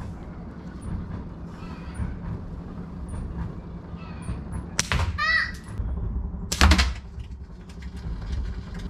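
Slingshot shooting at a catch box: two sharp cracks, one about five seconds in and a louder one under two seconds later.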